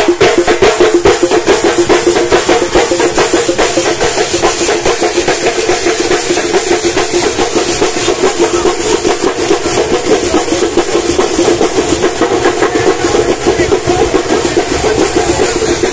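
Street percussion troupe playing a fast, steady, loud rhythm on stick-beaten chenda drums with hand cymbals clashing along.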